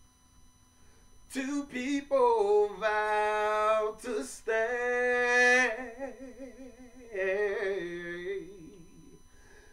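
A man singing unaccompanied, starting about a second in, with long held notes that waver in pitch and short breaks for breath between phrases.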